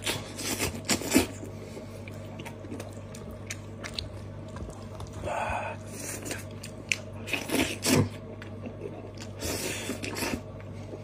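Close-up chewing and biting of steamed sheep's head meat: bouts of wet, crunchy mouth sounds a few seconds apart, over a low steady hum.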